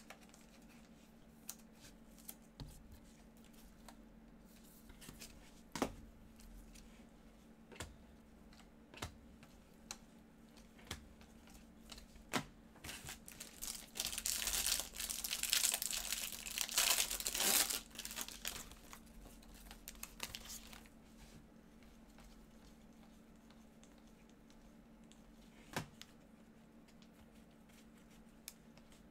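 A plastic trading-card pack wrapper crinkles and tears as gloved hands open it, loudest and densest for a few seconds around the middle. Scattered light clicks and taps of card handling come before and after.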